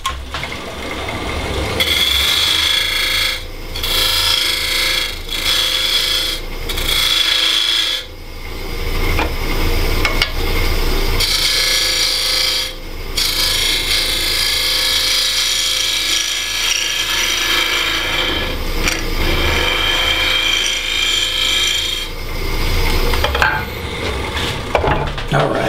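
A wood lathe spins a maple burl box blank while a hollowing tool cuts inside it. The cutting noise comes in several passes, each broken by a brief pause, over the lathe's low hum.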